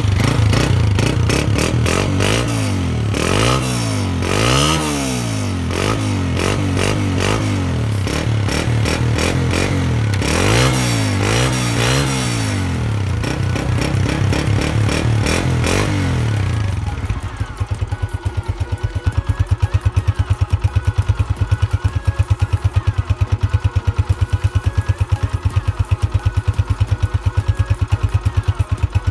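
Single-cylinder four-stroke engine of a Honda 125 motorcycle, fitted with a black aftermarket silencer, revved up and down repeatedly for a sound test. After about seventeen seconds the engine gives way to background music with a steady beat.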